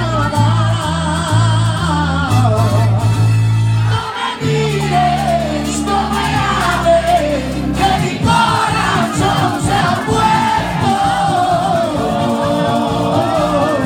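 Live band music with a lead singer, loud through the PA, heavy on the bass. About four seconds in the music drops briefly, the bass then holds, and from about halfway through the percussion comes in with a steady beat under the singing.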